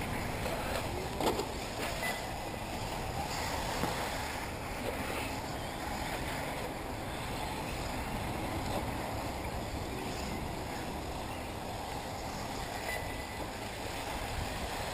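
Steady rushing noise of wind on the microphone over the faint running of electric 1/8-scale off-road RC buggies on the track, with a few light ticks.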